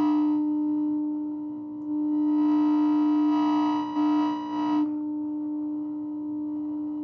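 1949 Motorola VT73 television running, giving a steady low electronic hum tone. A harsher, buzzy tone rides on top of it at the start and again from about two seconds in, cutting off abruptly just before five seconds in.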